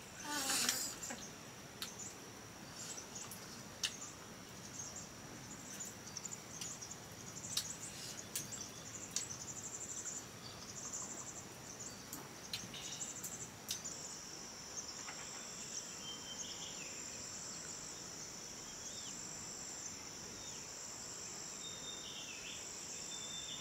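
Insects trilling at a high pitch, in pulses at first and then as a steady, unbroken trill from about halfway through. Scattered sharp clicks, and a brief louder noise near the start.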